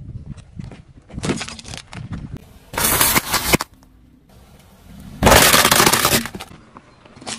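Something brittle cracking and breaking as a car crushes it, in several crunching bursts; the loudest comes a little past halfway and lasts about a second.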